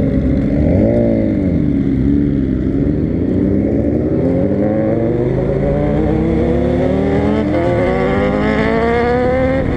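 Motorcycle engine under way: a quick rev up and back down about a second in, then a long steady climb in pitch as it accelerates. It drops briefly at a gear change about three quarters of the way in and starts climbing again.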